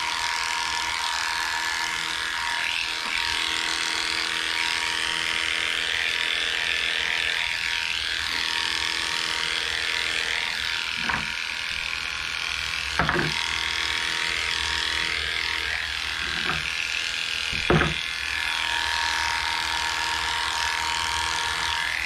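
Heiniger electric dog clipper running steadily, its slow motor humming as the blade cuts through a Shih Tzu's coat. A few sharp clicks or knocks come through it, about 11, 13, 16 and 18 seconds in.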